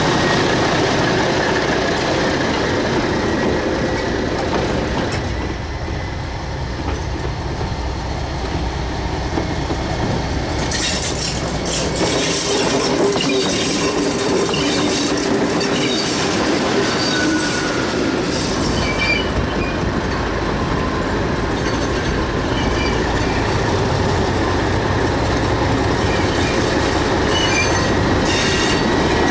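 English Electric Di class diesel-electric locomotive running past slowly, its diesel engine running steadily. From about ten seconds in, its wheels squeal and click over the rail joints.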